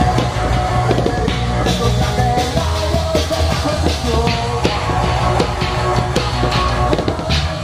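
Live rock band playing loud, with electric guitar and a drum kit.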